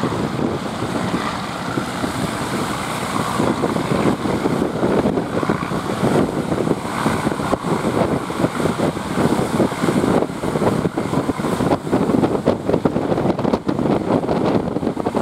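Wind buffeting the microphone over the steady running of a fishing boat at sea. The noise is loud and continuous, with irregular gusty pops throughout.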